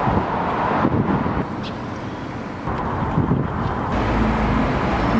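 Outdoor street noise: traffic and wind buffeting the microphone. The sound changes abruptly a few times.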